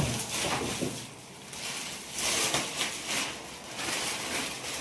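Rustling and crinkling of packaging being handled, in several short bouts.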